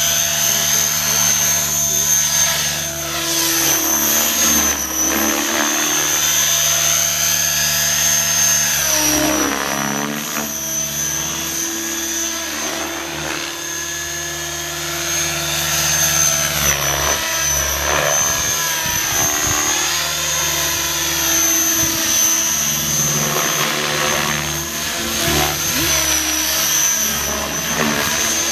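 Radio-controlled model helicopter flying, its rotor and motor whine sweeping up and down in pitch as it manoeuvres and passes.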